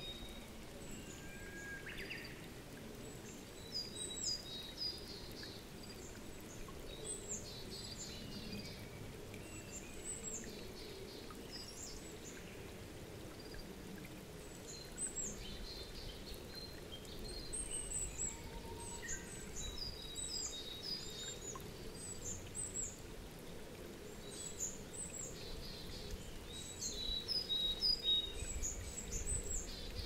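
Small wild birds calling with short, high chirps, scattered through and more frequent in the second half, over a steady low background noise; a low rumble rises near the end.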